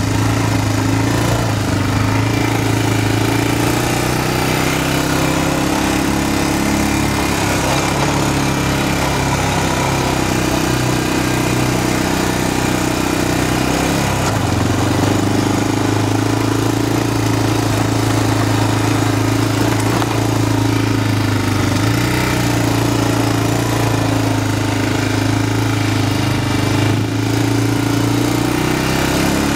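ATV engine running steadily while riding, its note shifting slightly a couple of times, with a hiss of wind and trail noise over it.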